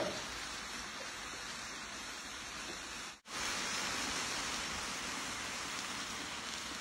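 Foil-wrapped fish packets sizzling on a hot griddle: a steady, even hiss that briefly cuts out about three seconds in.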